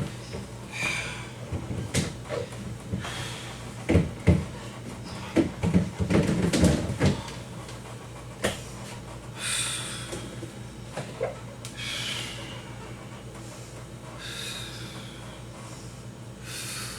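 Knocks and clatter of items and shelves being handled while a refrigerator is cleaned out, busiest about six seconds in, followed by several short swishing sounds a couple of seconds apart.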